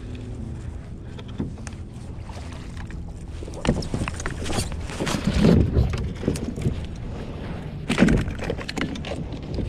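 Steady wind and water noise, then from about three and a half seconds in a run of irregular splashes and knocks as a calico bass is lifted dripping from the water and laid on a plastic kayak deck, with a sharp knock about eight seconds in.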